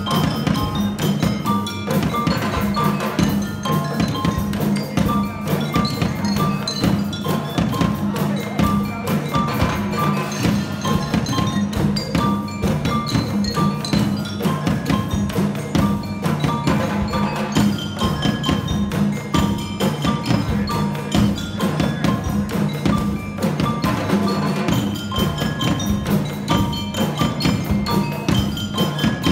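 A percussion ensemble playing a steady, repeating groove: hand drums and snare drum under repeated notes on a mallet keyboard, with sharp wooden clicks throughout.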